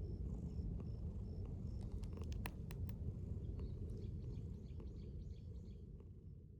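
Brown tabby cat purring close up: a steady low rumble, with a few sharp clicks in the middle, fading out at the end.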